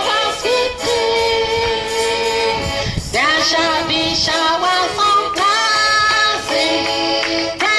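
Accordion music playing a slow hymn tune in long, held notes, with a short break about three seconds in before the next phrase.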